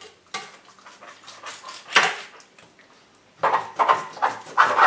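Kitchen knife cutting through a raw slab of pork spare ribs, the blade clicking and scraping on the cutting board in a run of short strokes. The strokes get louder and closer together in the last second and a half.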